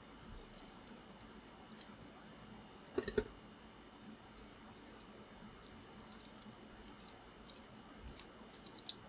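Faint, scattered small clicks and taps, with one louder knock about three seconds in.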